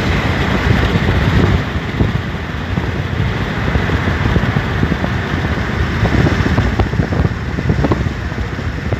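Road noise of a moving car, with wind buffeting the microphone in loud, uneven gusts.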